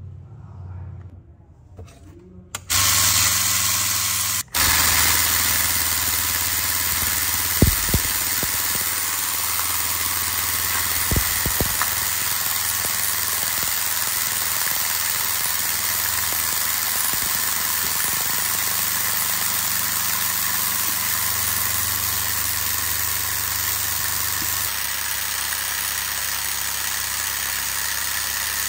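Homemade vibratory tumbler running: a small motor shakes a metal tray of pebbles and rusty bolts, the stones rattling in a steady hiss over a low hum, scouring the rust off the bolts. It starts about two and a half seconds in, cuts out for a moment, then runs on evenly, with a couple of knocks.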